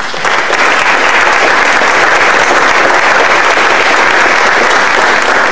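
Audience applauding, many hands clapping at once. It breaks out all at once and holds steady.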